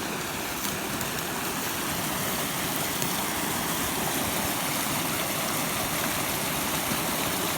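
Brook water rushing steadily through the open channel.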